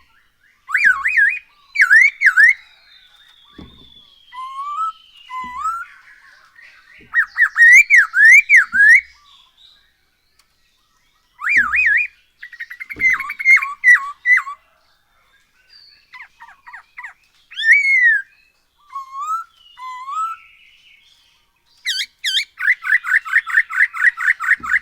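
Poksay Hongkong laughingthrush singing loud, varied whistled phrases of sweeping up-and-down notes, broken by short pauses, ending in a fast, even rattling trill.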